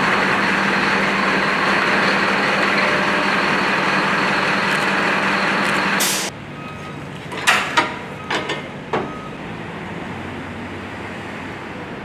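A fire truck at the station: a loud steady mechanical drone that ends sharply about six seconds in, then four or five metallic clanks and rattles from the equipment compartment's slide-out tray, over a quieter steady hum.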